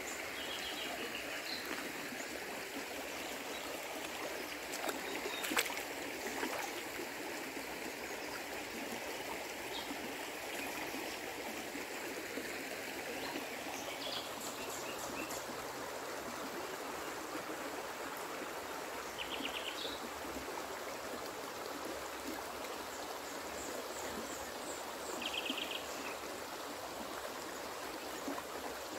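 Shallow river running over stones, a steady rush of water. Birds chirp briefly a few times, with short trills about twenty and twenty-five seconds in, and there is a single sharp tap about five and a half seconds in.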